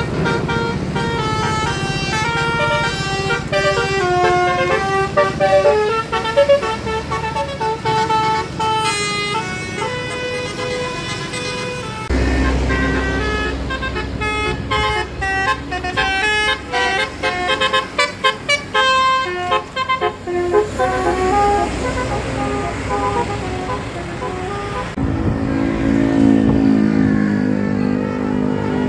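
Telolet basuri bus horn playing quick melodic runs of short, stepped notes that jump up and down in pitch. A lower held tone comes in near the end.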